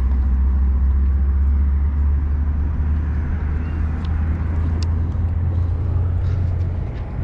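Steady low rumble of a nearby motor vehicle's engine running, which cuts off near the end.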